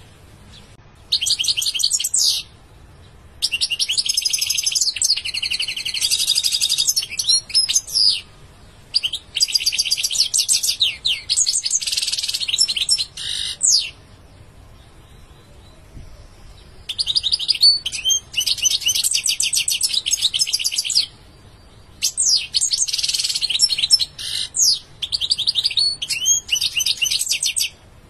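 European goldfinch singing: long phrases of fast, high twittering and trills, broken by short pauses, with a longer pause about halfway through.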